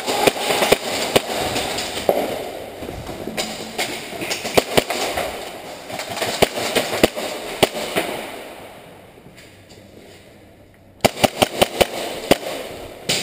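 Airsoft guns firing: scattered sharp pops, then after a short lull a quick string of about eight shots near the end.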